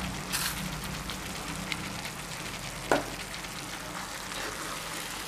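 Onion-tomato masala frying in a pan with a steady sizzle, and one sharp tap about three seconds in.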